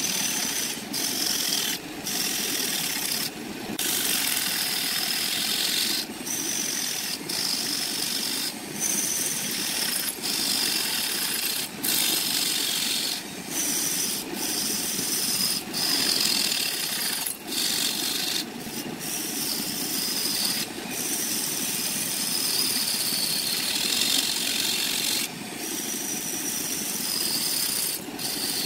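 Turning tool cutting a spinning wooden blank on a wood lathe: a steady scraping hiss, broken by short gaps every second or two.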